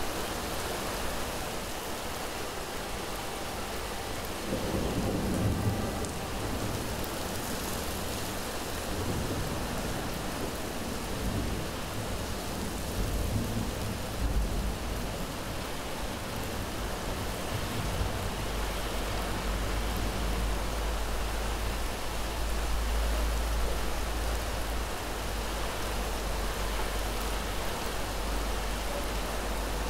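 Steady rain falling, with low rolling thunder: a rumble about five seconds in and a longer, deeper rumble from about two-thirds of the way through.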